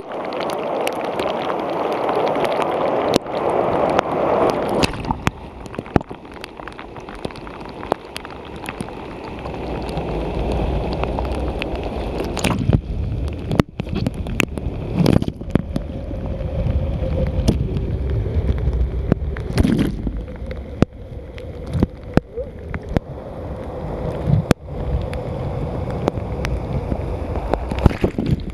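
Whitewater pouring over a river weir, heard close up from a kayak surfing in the weir's stopper: rushing, gurgling water. It is loudest in the first few seconds, then drops to a lower rumble broken by many sharp knocks and splashes against the boat and camera.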